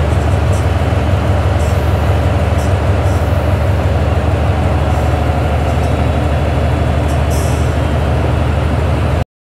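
A train at a station platform: a steady low running hum of its machinery under a broad noise, with a few faint, short high squeaks. It cuts off abruptly near the end.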